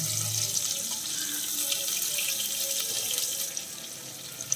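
Sliced onions sizzling as they are tipped into hot frying oil in a nonstick kadai, a steady hiss that eases off a little past three seconds in.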